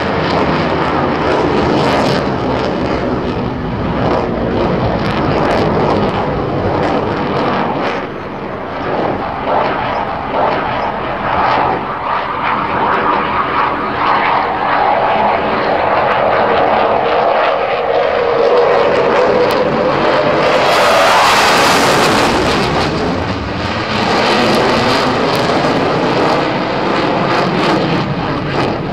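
Dassault Rafale fighter jet's two M88 jet engines, loud and continuous as it flies display manoeuvres. A tone falls in pitch through the middle, and the noise grows louder and harsher about three-quarters of the way through.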